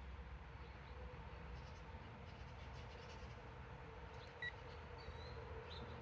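Faint steady background hum, with a few brief, faint high chirps and a short high beep-like tone in the second half.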